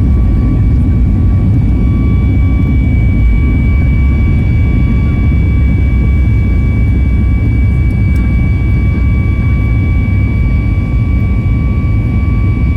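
Jet engines of a Boeing 737 MAX 8-200, CFM LEAP-1B turbofans, at takeoff power: a loud, steady low rumble with two steady high whines over it.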